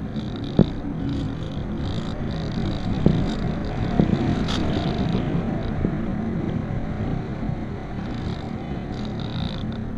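Steady rush of airflow over a camera mounted on a glider in flight. A sharp click comes just over half a second in, and a couple of lighter knocks around three and four seconds.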